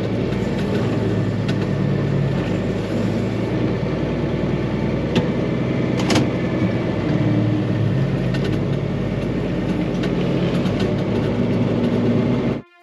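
Diesel farm tractor engine running steadily at idle, with a few sharp clicks or knocks over it; the sound cuts off abruptly near the end.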